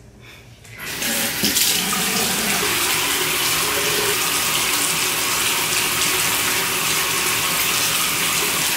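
Bathroom faucet turned on about a second in and running steadily, water pouring for face washing.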